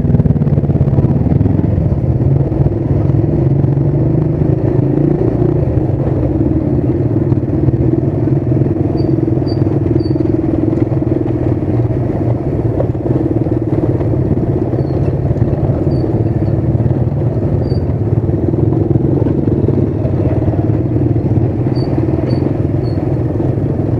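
Motorcycle engine running steadily at low speed, heard close up from the rider's own bike as it rolls along a rough dirt lane.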